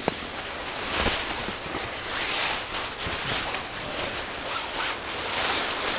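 Nylon hammock and sleeping-bag fabric rustling in several swishes as someone shifts about inside a hammock, with a click near the start.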